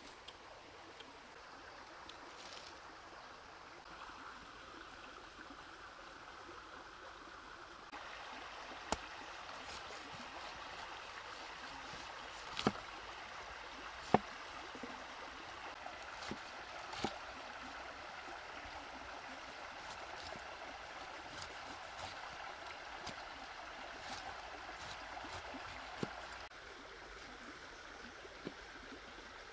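Steady running of a shallow stream, louder through the middle, with a few sharp knocks of a knife cutting through a pineapple onto a wet wooden log. The loudest knock comes about halfway through.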